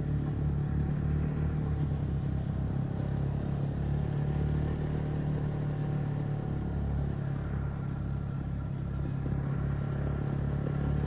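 Snowmobile engine running steadily at an even pitch while climbing a steep slope.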